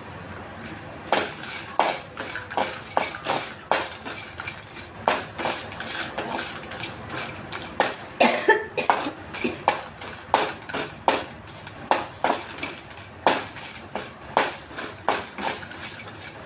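A metal utensil knocking and clinking against a metal pan in quick, irregular strokes, about two to three a second, as when stirring dried chillies in a pan on the stove.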